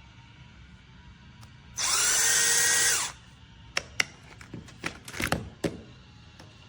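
A 12V cordless drill's motor run for about a second, spinning up with a rising whine, holding steady, then stopping. Several sharp clicks and knocks follow.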